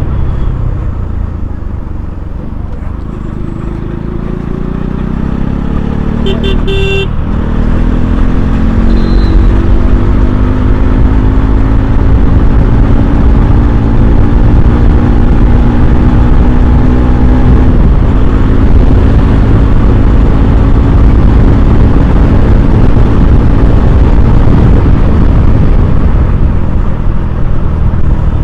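Motorcycle being ridden on the road: the engine pulls up through the revs over several seconds, then runs at a steady speed under a heavy low rumble. A horn honks briefly about six to seven seconds in.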